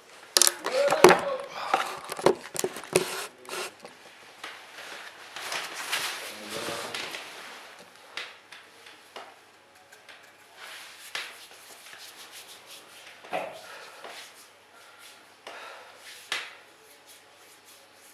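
Household handling noises: a quick run of knocks and clicks in the first few seconds, then rustling and scattered lighter taps as things are picked up and moved about.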